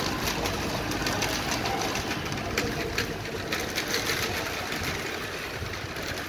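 Plastic shopping trolley rolling and rattling as it is pushed, a busy run of small clicks and clatter over a steady rumble.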